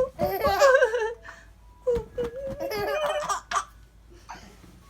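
Young child laughing in two high, wavering bursts, the first right at the start and the second about two and a half seconds in.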